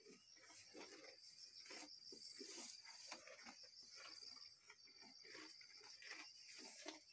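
Faint, irregular crunching and rustling of cattle eating forage from a feed trough, under a steady high-pitched insect trill.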